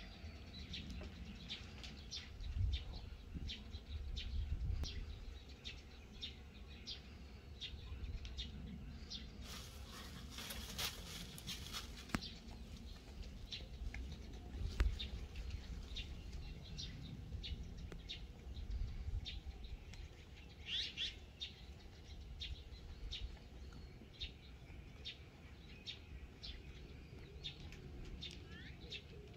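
Small birds chirping in short, repeated high calls over a steady low rumble, with a few dull thumps and a brief hiss about ten seconds in.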